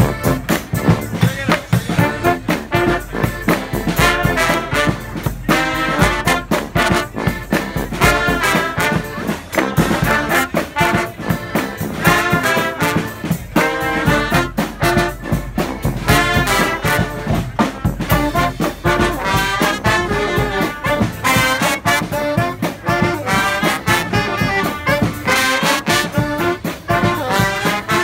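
A brass marching band of trombones and trumpets plays a lively tune over a driving drum beat, the horns swelling and wavering in ornamented lines.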